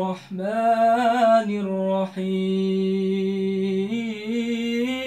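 A man chanting Quran recitation (tilawah) in the melodic style, drawing out long held notes with slow ornamented wavers, broken by two short pauses.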